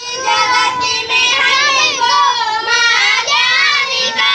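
Schoolchildren singing a prayer together in a continuous sung line.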